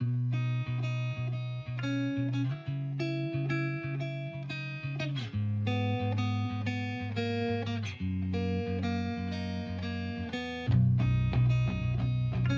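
Background music led by a plucked guitar, starting suddenly; about ten and a half seconds in it turns louder with a deeper part added.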